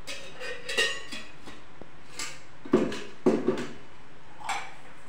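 Steel spoon clinking and knocking against a steel container and pan while ghee is spooned out: a handful of separate metallic clinks with brief ringing, the loudest three close together around three seconds in.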